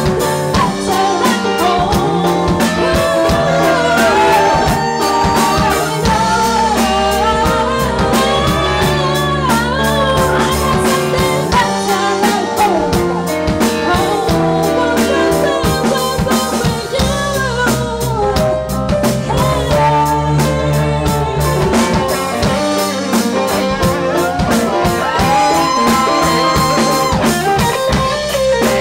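A woman singing lead with a live band: electric guitar and drum kit behind her voice.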